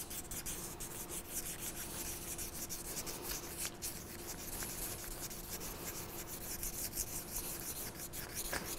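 400-grit sandpaper rubbed by hand in quick, gentle strokes against a motorcycle fork's chrome inner tube, sanding down sharp rust spots so they will not cut the dust seal.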